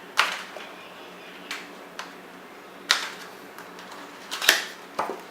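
Retail packaging of a Samsung SSD being opened and handled, giving about six sharp clicks and knocks of cardboard and plastic, the loudest near the start, about three seconds in and about four and a half seconds in.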